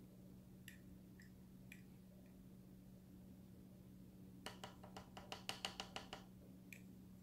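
Small plastic lip applicator clicking and scraping against a cosmetic jar: a few light clicks, then a quick run of about a dozen clicks past the middle and one more near the end, over a faint steady hum.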